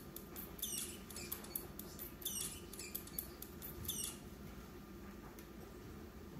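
Mouse squeaking: repeated bursts of short, high squeaks, each falling in pitch, that stop about four seconds in.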